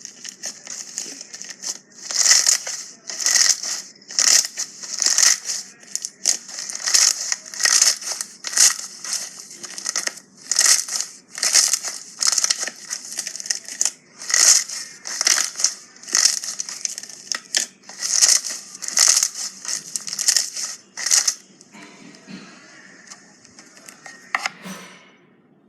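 Slime being squeezed and pressed by hand in repeated short bursts, about one to two a second, stopping a few seconds before the end.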